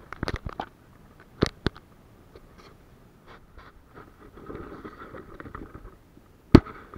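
Scattered sharp knocks and clicks of handling noise, with a light rustle between them and the loudest knock near the end.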